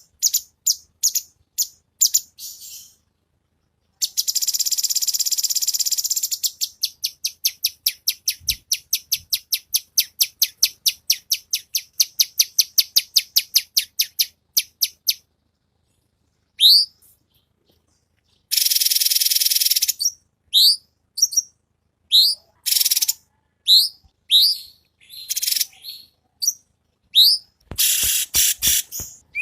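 Cucak cungkok singing: long fast runs of rapidly repeated high notes at about five a second, then a short pause and a looser series of sharp rising whistles broken by dense, buzzy high bursts.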